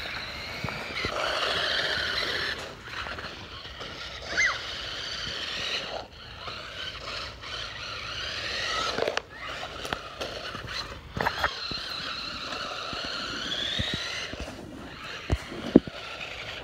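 Electric motor of a remote control car whining, its pitch rising and falling as it speeds up and slows, with scraping and several sharp knocks, the loudest near the end.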